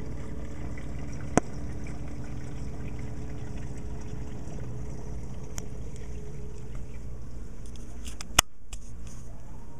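Steady low hum and trickling water from a reef aquarium's running water, broken by two sharp clicks, one about a second in and one near the end.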